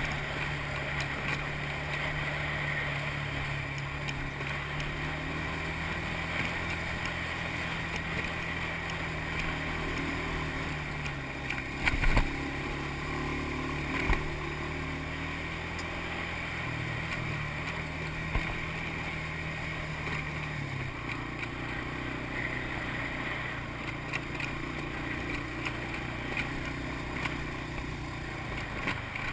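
ATV (four-wheeler) engine running steadily while riding a trail, its note dropping in pitch about two-thirds of the way through. Two sharp knocks stand out, one about twelve seconds in and another two seconds later.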